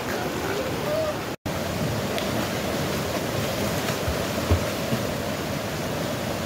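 Steady rush of stream water and a small waterfall, with a few splashes of people thrashing in the pool. The sound drops out completely for a moment about a second and a half in.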